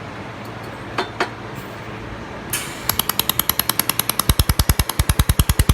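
Handheld laser welding machine firing in rapid, regular pulses, about ten a second, starting about three seconds in and turning heavier and deeper about a second and a half later, after two sharp clicks and over a steady machine hum.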